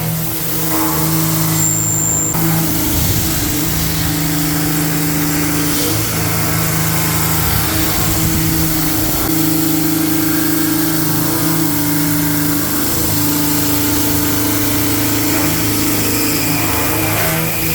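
UDM-2216 three-axis CNC machining center milling steel: a steady spindle and cutting drone over a constant hiss, its tone stepping in strength every few seconds as the cut goes on.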